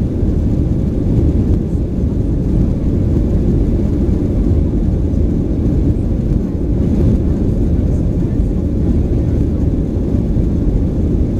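Steady low cabin rumble inside a Boeing 737-900 airliner: its CFM56 engines and the airflow running loud and even, with no distinct tones or knocks.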